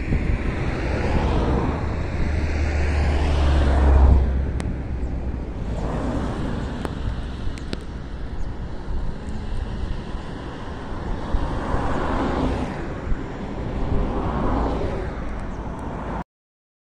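Wind rumbling on the microphone over vehicle road noise, swelling and fading several times; the sound cuts off abruptly near the end.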